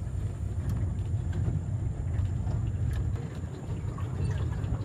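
Boat motor idling: a steady low rumble, with faint scattered ticks above it.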